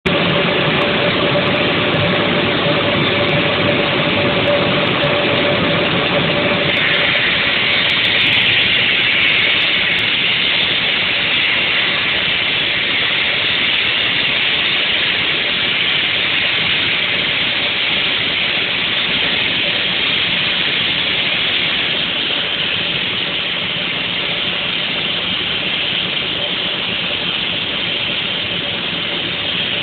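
Multi-blade stone block cutting machine's large circular saw cutting down into a stone block under a water spray: a loud, steady grinding hiss over a constant electric-motor hum. About seven seconds in the hiss turns higher and brighter.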